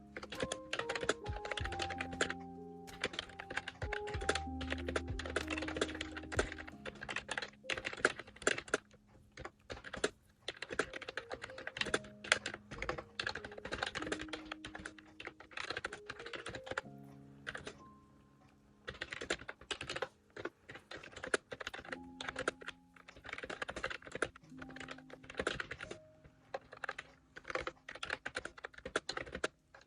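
Continuous typing on an Ajazz Bluetooth keyboard, a dense, irregular run of light key clicks, with soft background music in parts.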